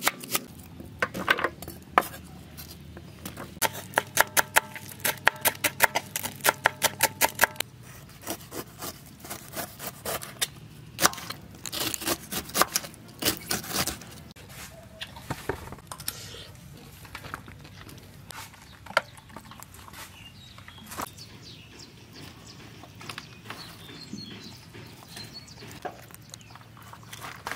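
Kitchen knife chopping on a wooden cutting board, cutting onion and then pineapple, in quick runs of sharp chops through the first half. After that come softer, scattered taps and handling noises.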